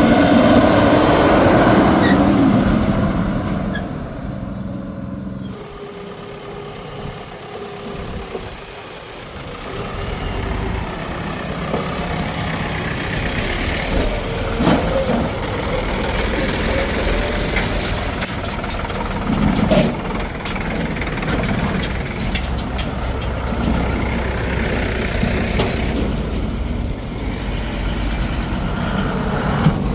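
Heavy diesel vehicle engine running steadily, loudest in the first few seconds, then dropping and building back up.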